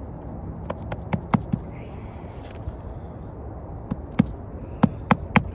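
Hammer striking roofing nails through asphalt shingles: a few light taps about a second in, then a quicker run of sharp, louder blows near the end.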